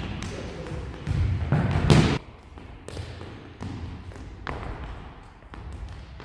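Football being kicked and struck in an echoing sports hall: the loudest thump comes about two seconds in, followed by lighter, separate knocks as the ball is touched along a wooden floor.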